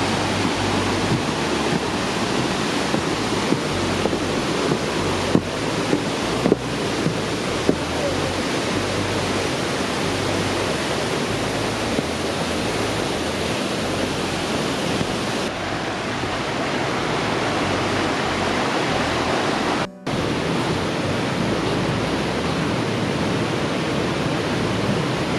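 Mountain river rushing over rocks and a waterfall, a loud, steady wash of water noise, with a few light knocks in the first several seconds. It cuts out for a moment about twenty seconds in, then carries on.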